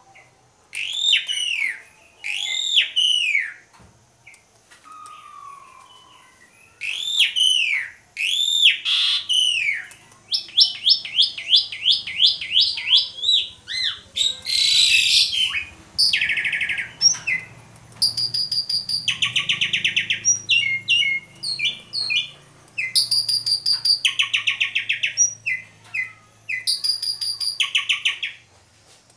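Asian pied starling (jalak suren) singing a loud, varied song. It starts with repeated arching whistled notes, then runs into rapid strings of notes, harsh buzzy rattles and fast chattering trills.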